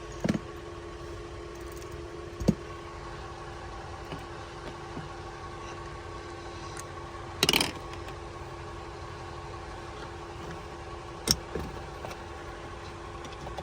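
A steady mechanical hum, with four short knocks and rattles from tools and parts being handled while an amplifier is worked on; the loudest knock comes about halfway through.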